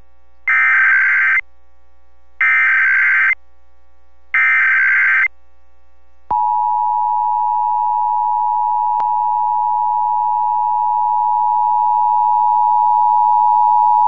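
Emergency Alert System tones over FM radio: three short screeching data bursts of the SAME header about two seconds apart, then the two-tone EAS attention signal, a steady dual tone held for about eight seconds. Together they are the start of an EAS alert, here the nationwide test.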